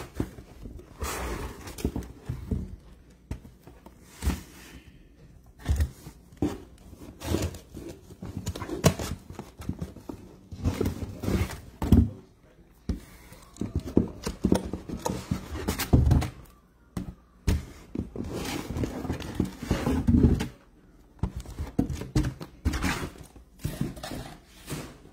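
Irregular thunks, taps and rustling as cardboard boxes of baseball cards are handled, shifted and set down on a table.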